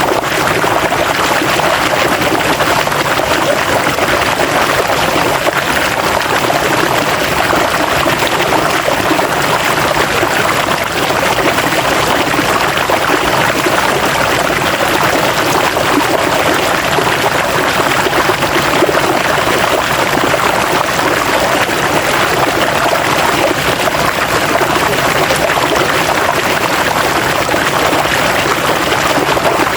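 River water flowing and rushing over rocks, steady and unchanging.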